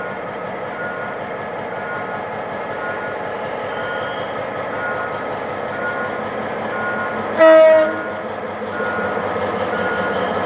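GM G-22W diesel-electric locomotive running under power as it pulls a passenger train out of the station, growing a little louder near the end as it comes level. A single short horn blast about seven and a half seconds in is the loudest sound. A short electronic beep repeats about every 0.7 seconds alongside.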